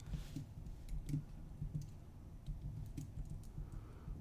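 Faint computer-keyboard typing: a scattered run of irregular keystrokes.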